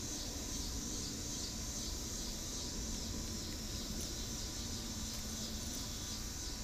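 Steady, high-pitched chorus of insects such as crickets.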